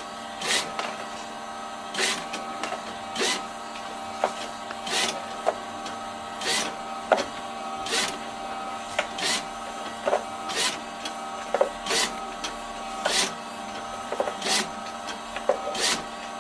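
JMV LAB510 automatic labelling machine and its conveyor running steadily with a hum. A short swish comes about every second and a half as the machine cycles, with lighter clicks in between.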